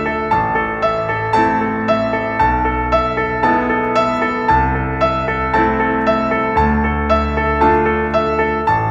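Background instrumental music: a repeating run of notes over slower, sustained low notes.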